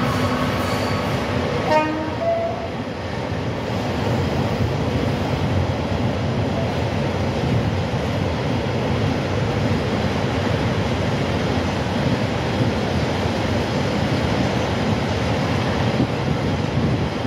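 Long train of empty car-carrier wagons behind a Renfe class 251 electric locomotive rolling past, a steady rumble of wheels on rail. A few brief tones sound in the first two seconds.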